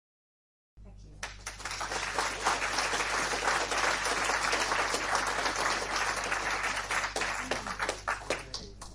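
Crowd applause with some voices mixed in, starting about a second in, swelling quickly to a dense, steady clapping and thinning out near the end.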